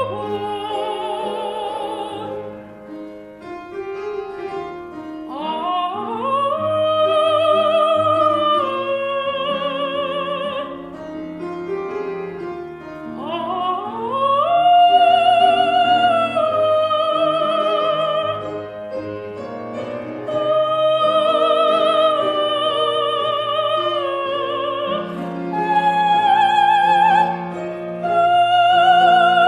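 A soprano singing in operatic style with wide vibrato, sliding up into long held high notes several times, over a musical accompaniment.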